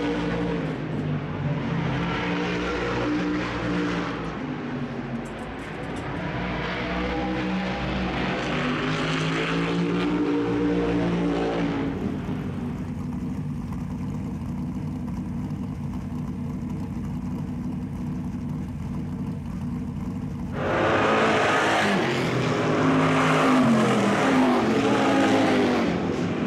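Supermodified race car engines running loud: revs rise and fall for the first dozen seconds, settle into a steadier low running from about twelve seconds in, then rev up again, louder, from about twenty seconds in.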